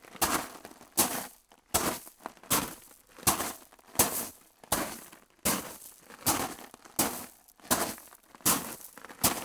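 Foley footsteps on a crunchy, gritty surface at a steady walking pace, about one step every three-quarters of a second, each a sharp crunch with a short grinding tail.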